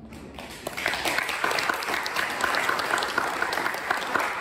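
Audience applauding at the end of a talk. The clapping builds up over the first second and then stays steady.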